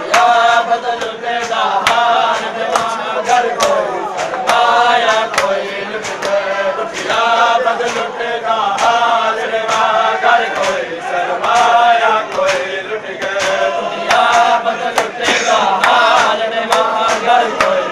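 Men chanting a mourning lament (noha) together, with bare-handed chest-beating (matam) slaps keeping a steady beat of about two a second.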